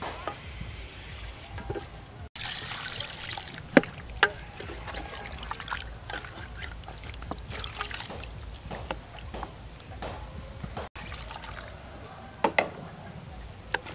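Wooden spatula stirring a pot of saucy beef curry, the thick liquid sloshing wetly, with a few sharp knocks of the spatula against the metal pot.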